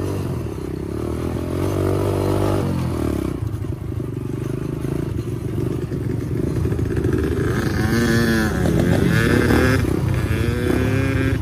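Four-stroke single-cylinder dirt bike engine under way, the revs climbing over the first couple of seconds, dropping briefly near the three-second mark as it shifts gear, then rising and falling again near the end.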